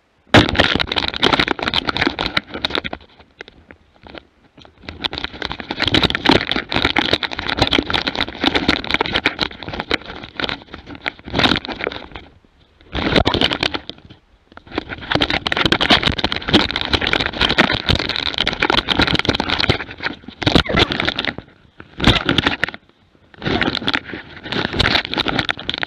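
Rushing, scraping and crackling as a GoPro strapped to a running hunting dog is jostled and brushed through forest undergrowth. It comes in long loud bursts broken by a few short, quieter pauses.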